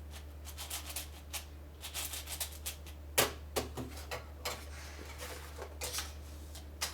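Irregular plastic clicks and clacks of a 6x6 speed cube being handled and turned, with one sharper knock about three seconds in, over a steady low electrical hum.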